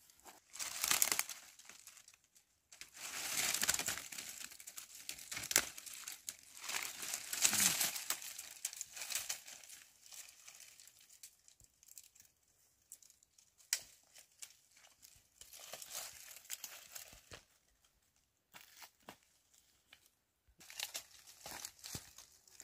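A large bundle of dry, brittle branches rustling, scraping and crackling in loud bursts as it is hoisted onto the back on straps, then rustling more quietly and unevenly while it is carried.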